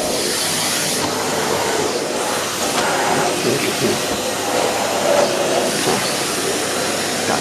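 Henry HVR 160-11 bagged cylinder vacuum cleaner running steadily: a loud, even rushing of its suction motor and airflow.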